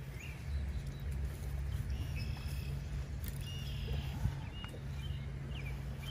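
Small birds chirping now and then over a steady low hum.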